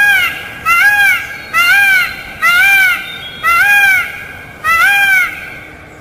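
Peafowl calling: six loud calls in quick succession, each a short cry that rises and falls in pitch, a little under a second apart, with the last one ending about five seconds in.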